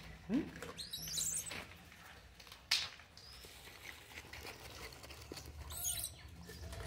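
Rustling and crinkling of a thin plastic bag of biscuits, with handling noise and a sharp click about two and a half seconds in.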